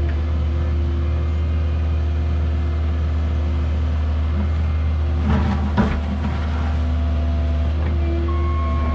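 Cat 306 mini excavator's diesel engine running steadily under work, with a brief clatter about five and a half seconds in and a steady beep starting near the end.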